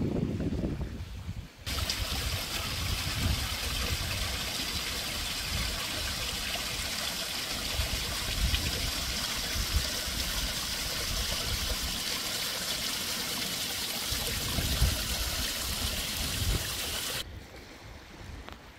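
Shallow stream of water trickling and splashing over stones, a steady trickle that starts suddenly about two seconds in and cuts off near the end. Wind rumbles on the microphone at the start and near the end.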